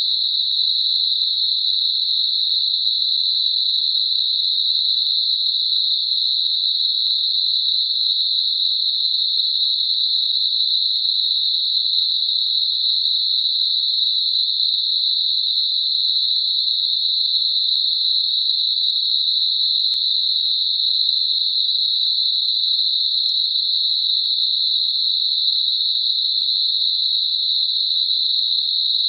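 Synthetic Gaussian narrow-band noise centred on 4 kHz: a steady, even, high-pitched hiss with no low or very high content. It is a tinnitus-masking sound.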